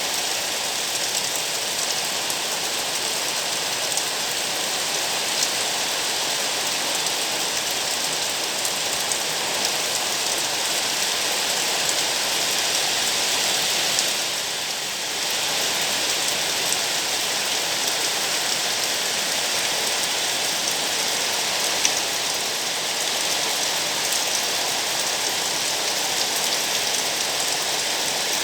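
Steady rain falling, a dense hiss with scattered sharper taps of drops striking surfaces, easing briefly about halfway through.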